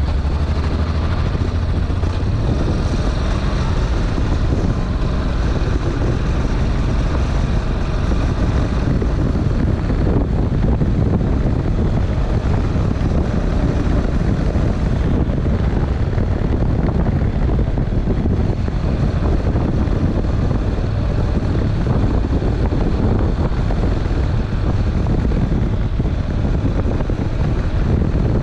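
Honda NC700X's parallel-twin engine running at a steady cruise, mixed with heavy wind rush buffeting a bare action-camera microphone.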